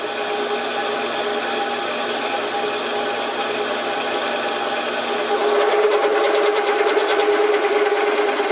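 Carbide drill bit boring into metal, chips coming off, over the steady hum of the drill's motor. About five seconds in the cutting grows louder and rougher.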